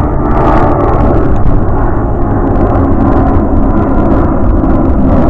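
Jet airliner engines running loud and steady, a dense roar with a low rumble and a held whine through it.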